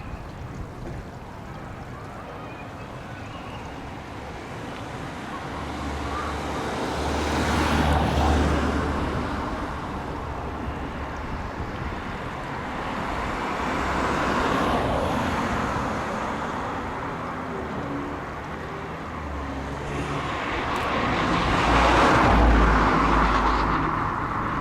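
Road traffic: three vehicles pass one after another, each swelling and fading over a few seconds, the last the loudest, near the end.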